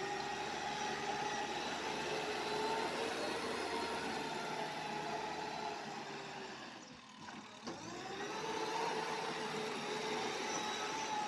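Engine of a heavy working vehicle running steadily with a whining hum; its pitch sags and it quietens about seven seconds in, then it picks up again.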